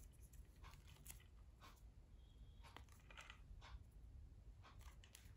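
Faint crackling rustles of grip tape being stretched and pressed onto a fishing pole's handle as it is wound on, a soft stroke about every half second over quiet room tone.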